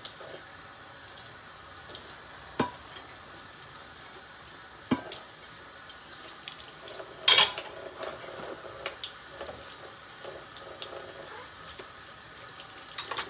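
Water running from a kitchen tap into the sink, with dishes knocking now and then; the loudest knock comes about seven seconds in.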